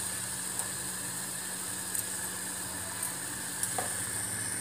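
Tomatoes and tamarind water cooking in an aluminium pot on the stove: a steady sizzling hiss, with a low steady hum underneath and a few faint ticks.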